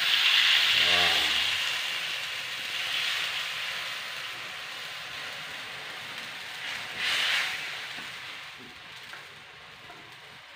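Curry mixture sizzling in hot oil in a wok as it goes in, loud at first and fading steadily as it settles; a brief louder sizzle about seven seconds in.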